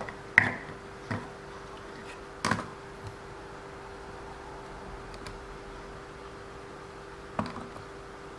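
Four sharp clicks and knocks of small RC car parts being handled and moved, the loudest about half a second in and another near the end, over a faint steady hum.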